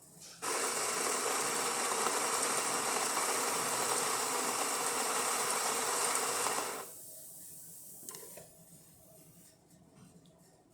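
Baratza Vario burr coffee grinder running a test grind on freshly replaced burrs: a steady grinding that starts about half a second in, runs for about six seconds and stops sharply. It produces a fine grind.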